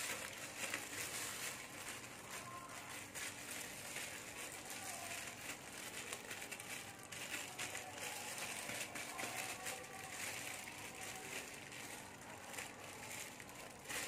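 Plastic film crinkling and rustling as hands squeeze and smooth a plastic-wrapped ball of sticky rice packed around a whole chicken.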